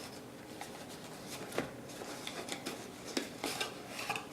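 Cardboard packaging of a headphone box being opened and handled: irregular rustles, scrapes and small clicks.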